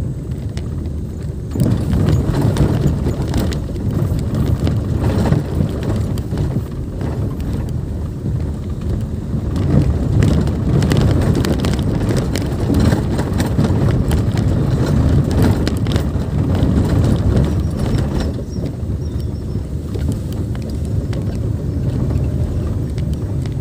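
Car driving on a rough dirt and gravel forest track, heard from inside the cabin: a steady low road and engine rumble with stones crackling and knocking under the tyres. The knocking gets louder about a second and a half in and eases near the end, where the track turns back to concrete.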